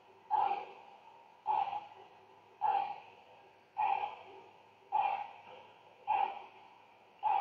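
A person's sharp, forceful breaths through the nose, made by pumping the abdomen in a yoga breathing exercise. There are seven, evenly about one a second, each cutting in suddenly and fading away.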